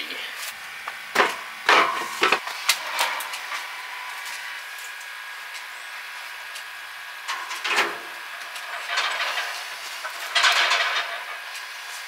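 Knocks and rubbing of wood as a wood-framed solar window heater panel and its wooden prop stick are handled on a galvanized stock tank. There are a few sharp knocks in the first three seconds, another about eight seconds in, and rustling near the end, over a faint steady hiss.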